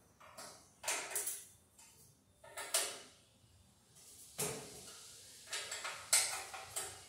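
A wrench and other hand tools clinking and scraping against the metal of a Wheel Horse garden tractor's dash, in several short bursts of clatter as parts are worked loose.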